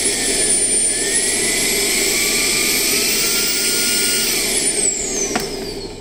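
Makita CL003G 40V max cordless cyclone handheld vacuum running with a high motor whine whose pitch shifts up and down as its power mode is changed. Near the end it is switched off and the whine falls away as the motor spins down, with one click.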